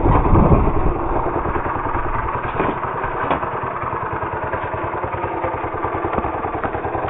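Small single-cylinder mini bike engine idling steadily, a little louder for the first second.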